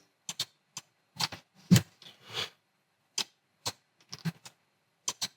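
Irregular clicking of a computer mouse and keyboard, about a dozen separate clicks, the loudest a little under two seconds in.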